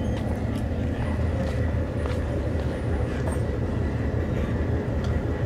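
Steady low rumble of harbourside ambience, with a few faint scattered clicks.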